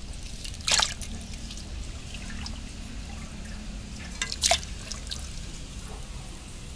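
Water splashing and dripping in a metal bowl as hands wash cut tilapia pieces, with two louder splashes, about a second in and again past the middle.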